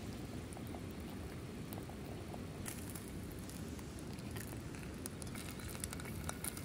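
Faint sizzling and crackling of sauce-glazed saury fillets on a hot griddle pan, with scattered small clicks in the second half as chopsticks lift a fillet.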